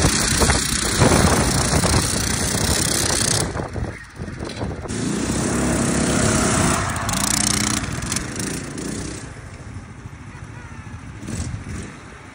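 Small engines of a tracked chair and a go-kart running hard as the two machines pull against each other on a tow strap. The noise drops sharply about four seconds in, then an engine note comes back up and fades to quieter running near the end.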